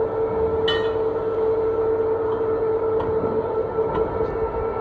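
Lifeboat davit winch running steadily as it hoists the lifeboat, a constant loud mechanical hum with a fixed tone. A brief high squeak about a second in.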